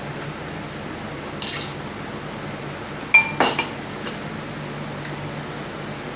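Crab being cracked and picked apart while eating a seafood boil: small clicks and crackles of shell, a sharp ringing clink against a dish about three seconds in, then a brief crunch.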